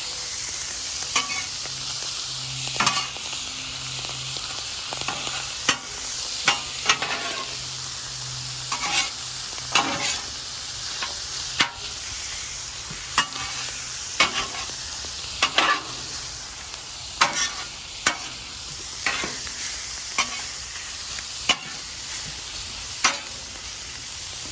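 Ground beef and mixed vegetables sizzling on a 28-inch Blackstone Adventure flat-top griddle. A spatula clacks and scrapes on the griddle surface about once every second or so as the food is stirred together.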